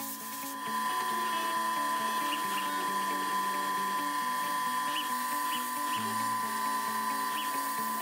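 High-speed CNC milling spindle running with a steady high whine while a fine end mill cuts a small metal part, with a few short ticks.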